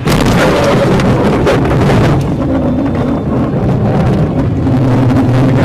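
Car engine droning steadily under a loud rush of wind and blowing snow, heard from inside a car driving through a blizzard.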